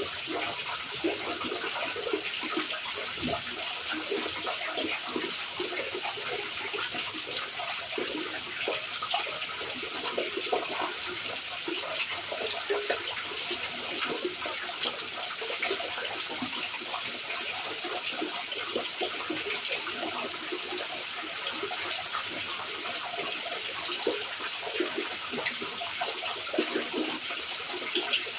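Steady heavy rain, with a dense scatter of close drops splashing over an even hiss.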